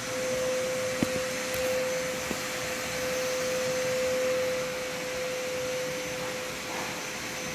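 A small electric motor running steadily, with a constant hum and a rushing hiss, and a sharp click about a second in.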